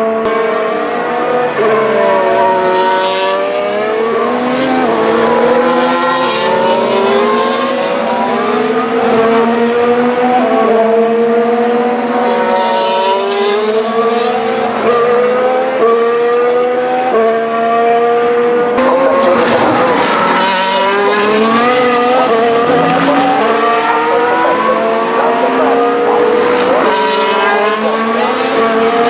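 2025 Formula 1 cars' 1.6-litre turbocharged V6 hybrid engines at racing speed, several cars passing one after another. The engine pitch climbs and drops in steps through the gear changes, and the sound swells loud as each car goes by, about five times.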